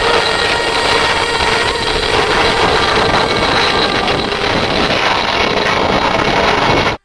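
Aircraft engine noise running loud and steady with a faint held tone, cut off abruptly near the end.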